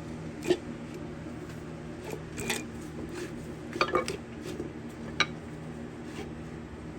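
Sharp metallic clinks of hand tools and parts on a small-block Chevy 350 being torn down, about five of them a second or more apart, with a steady low hum underneath.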